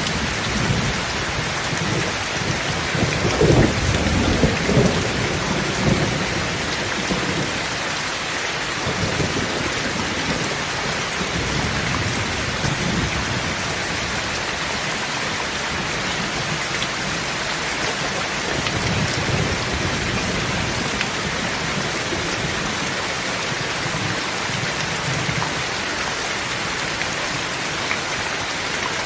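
Thunderstorm: steady heavy rain falling, with a roll of thunder rumbling loudest a few seconds in and fainter rumbles later on.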